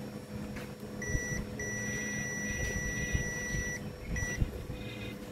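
Zotek ZT102 digital multimeter's continuity beeper sounding: a short beep, then a long steady beep of about two seconds, then another short beep. The probes are on the power MOSFET's pins, and the beep marks a short that the technician reads as a shorted MOSFET.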